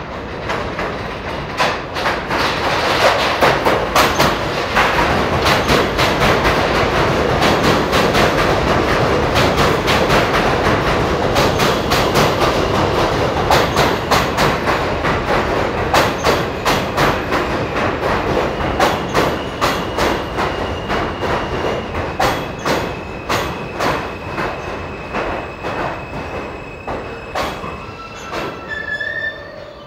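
New York City subway F train pulling into an elevated station on a curve: steel wheels clicking over rail joints, the clicks spacing out as it slows. A high, steady wheel squeal sets in about halfway through and holds until the train comes to a stop near the end.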